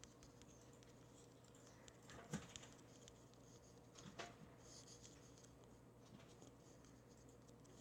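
Near silence with faint fingertip tapping on a phone screen while typing a message, and two louder clicks about two and four seconds in.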